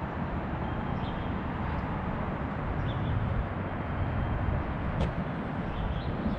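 Steady outdoor street background noise, mostly a low rumble, with a faint click about five seconds in.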